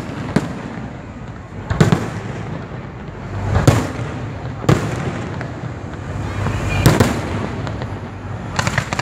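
Fireworks going off: about five sharp bangs a second or two apart over a steady low rumble, with a run of quick crackles starting near the end.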